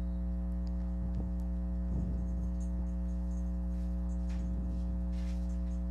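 Steady electrical mains hum with several overtones, with a few faint clicks here and there.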